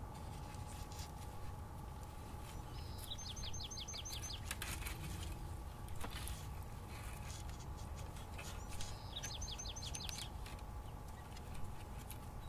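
A small songbird sings the same short phrase twice, each a quick run of about seven falling whistled notes. Dry sticks and brush rustle and knock as wooden poles are lashed together with cord.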